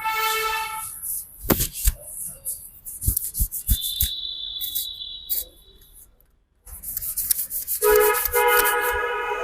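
Head massage at a street barber's: scratchy rubbing and a few dull slaps or knocks, with a thin high whine for about a second and a half in the middle. A vehicle horn honks briefly at the start and again for about a second and a half near the end, the loudest sound.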